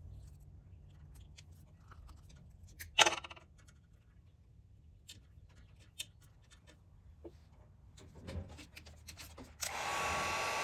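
Hand tools and small parts clicking and knocking during car wiring work, with one loud knock about three seconds in. Near the end a small electric power tool starts up and runs steadily with a whir.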